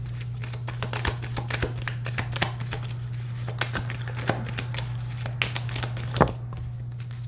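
A deck of cards shuffled by hand: a quick, dense run of card clicks and riffles that thins out after about six seconds. A steady low hum runs underneath.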